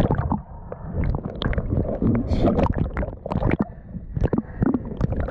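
Lake water splashing and gurgling over a waterproof camera as it dips through the surface and under, with many sharp, irregular slaps and knocks of water against the housing.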